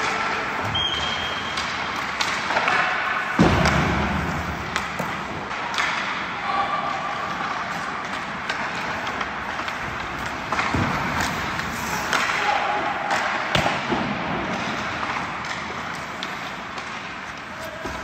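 Indoor ice-hockey practice: skates scraping the ice and pucks clacking off sticks in a string of sharp knocks, with one heavy thud about three and a half seconds in. Faint voices are mixed in.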